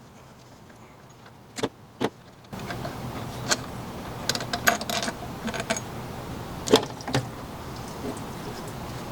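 Scattered metallic clicks and clinks of hand tools and loose parts during engine disassembly: two clicks over quiet room tone, then a louder background hiss comes in about two and a half seconds in with a run of irregular clinks, the loudest one near the end.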